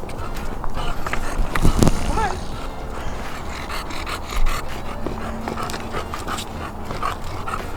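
English bulldog breathing hard on a steep rocky climb, with irregular crunching footsteps on rock and gravel.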